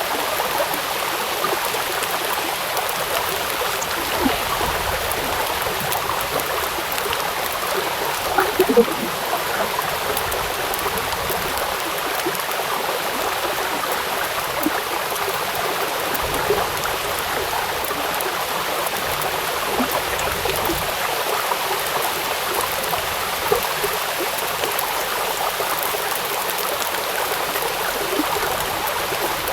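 Rain falling on a river: steady splashing and pattering over flowing water, with a few louder drops here and there.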